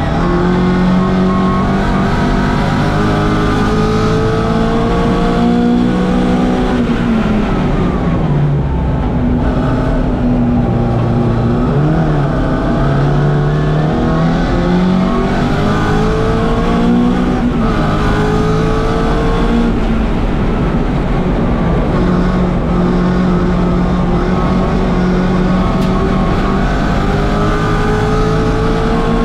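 1964 Mini Cooper S's BMC A-series four-cylinder engine revving hard under racing load. Its pitch climbs through each gear and drops sharply at the gear changes, several times over.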